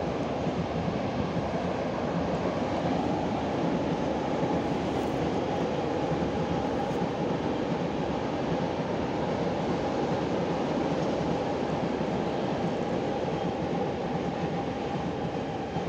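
Freight train of open coal wagons rolling past over a railway bridge: a steady rumble of wagon wheels on the rails, with a thin steady tone running through it.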